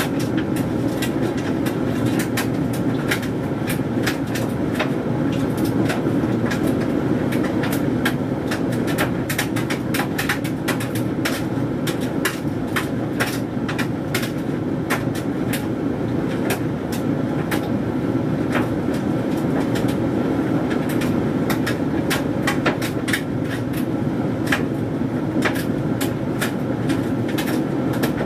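Hoover Dynamic Mega 10kg condenser tumble dryer running, its drum turning a load of synthetic washing with a steady hum and rumble. Frequent irregular clicks and taps sound over it.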